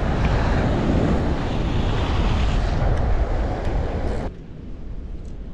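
Wind buffeting the microphone over surf breaking on rocks, a loud, steady rumble that cuts off abruptly about four seconds in to a much quieter, duller background.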